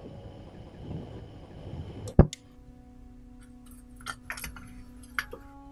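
Torch flame hissing on glowing charcoal in a miniature grill, cut off by a sharp click about two seconds in. Then soft music with a few light metallic clicks of tweezers on the tiny grill grate.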